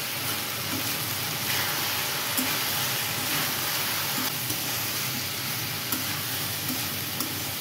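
Potato and cauliflower pieces sizzling in oil in a kadai as a spatula stirs them: a steady frying hiss, with a few light knocks of the spatula against the pan.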